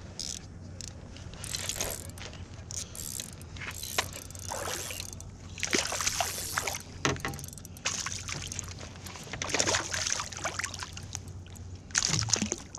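Irregular clicks, knocks and scrapes of handling and fishing gear in a canoe.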